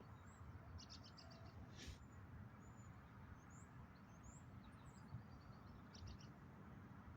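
Faint, steady rumble of distant highway traffic, with small birds chirping several times over it in short high notes and quick trills.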